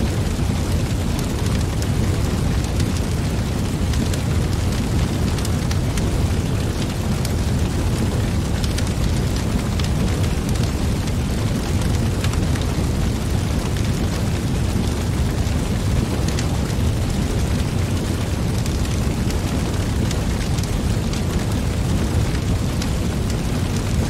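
Wood fire burning in a metal fire pit: a steady low rush of flame with scattered sharp crackles and pops from the burning logs.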